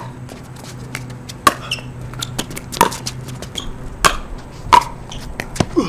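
Pickleball paddles striking the plastic ball back and forth in a rally: a series of six sharp, hollow pops about a second or a second and a half apart, with fainter ticks between them.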